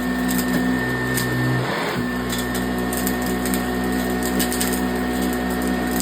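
1987 Eureka self-propelled upright vacuum cleaner running steadily, its motor humming with scattered light ticks, with its self-propelled drive working. The hum briefly changes about two seconds in.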